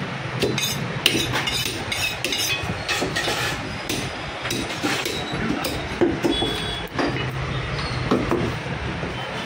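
Butcher's knife and cleaver at work: clinks of the blade against a steel honing rod, and chops into meat on a wooden chopping block. Together they make a rapid, uneven series of sharp knocks and clinks.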